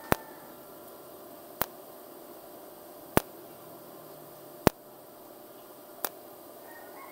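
Cold TIG spot welding on thin stainless steel sheet with a Tenya TIG 250PC: five sharp, short cracks about a second and a half apart. Each crack is a single arc pulse lasting a few hundredths of a second, short enough that the sheet does not warp.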